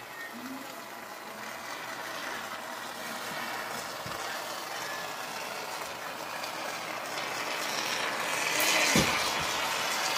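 Can of expanding spray foam hissing as foam is dispensed through its straw nozzle, getting louder toward the end.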